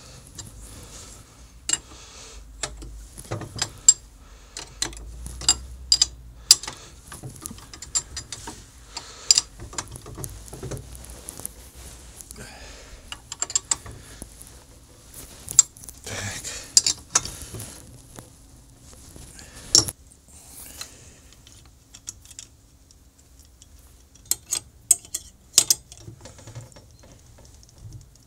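Metal clinks, taps and knocks of a spanner, screwdriver and painted steel parts being handled and bolted together while a small homemade wood lathe is assembled. The sharp clicks come irregularly throughout, some in quick clusters.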